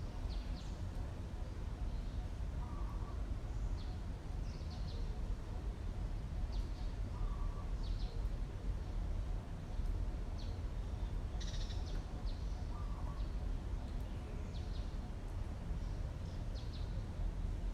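Scattered short, high chirps from small animals or birds over a steady low rumble, with a lower short call repeating three times about five seconds apart.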